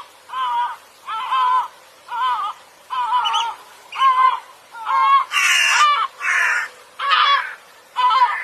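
A bird calling over and over, about ten harsh calls with a wavering pitch, roughly one every 0.8 s; a louder, rougher call comes about five seconds in.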